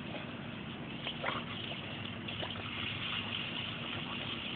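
Garden hose spraying a steady stream of water that splashes and patters against a wall and a dog biting at the spray.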